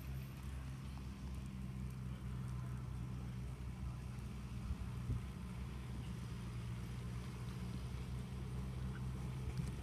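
A steady low mechanical hum, even in level throughout.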